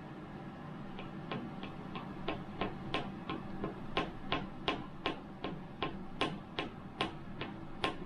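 Hand screwdriver driving screws into plastic sheetrock anchors through a ceiling light's mounting plate, giving a run of sharp clicks about three a second. The clicks grow louder after the first few seconds.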